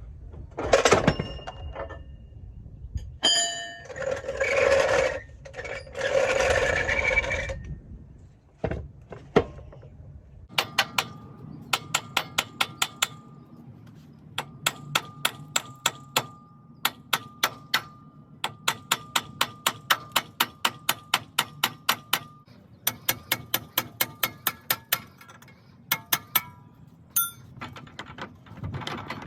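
Hand tools working on metal under a truck. First a few knocks and two long scraping stretches, then from about ten seconds in, runs of quick sharp metallic clicks, several a second, with a light ring between them.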